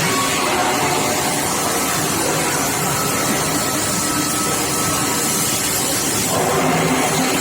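Steel pipe induction hardening and tempering line running: a steady machinery noise with a few faint thin tones in it.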